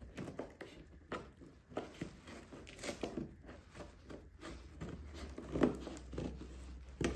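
Scissors snipping and tearing at the packaging of a cardboard box: irregular snips, scrapes and crinkles of cardboard and wrapping.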